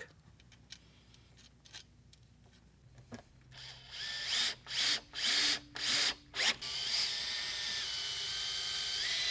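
Cordless drill-driver driving pocket-hole screws into a wooden panel: about five short bursts of the motor a few seconds in, then one longer steady run.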